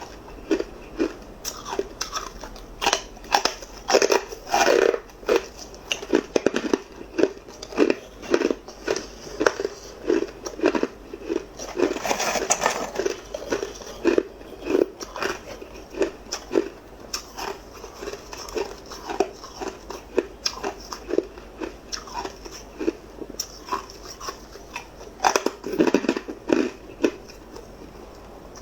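Hard ice being bitten and chewed, a steady run of sharp crunches a little over once a second, with a denser burst of crunching about twelve seconds in.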